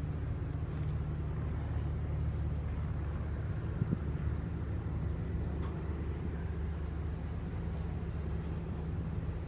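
An engine running with a steady low drone. There is a short knock about four seconds in.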